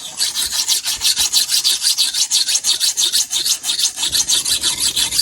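Fast, even scraping strokes, about six a second, a rough rasping sound of something rubbed hard back and forth; it stops suddenly at the end.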